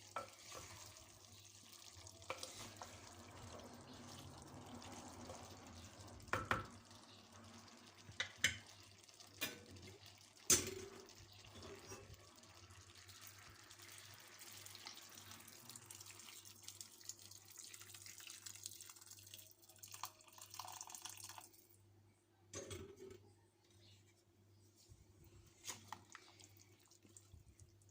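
Kitchen tap running into a sink for about twenty seconds, broken by a few sharp knocks, then shutting off, with only scattered small knocks after.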